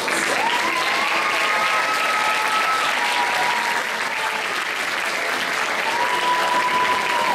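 Audience applauding steadily. Two long, high, held tones sound over it: one rises in near the start and holds for a few seconds, and the other comes near the end.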